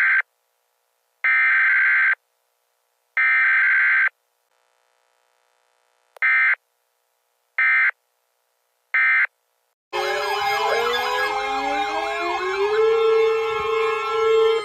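Emergency Alert System data bursts: three buzzy bursts about a second long, then three shorter ones. About ten seconds in, a loud siren-like alert tone starts, with several pitches wailing up and down over each other.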